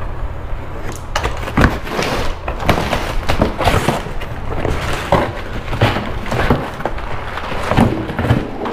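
A cardboard box holding plastic cutting boards being pulled over and handled: irregular knocks, clatters and cardboard scraping and rustling as the boards shift against the box.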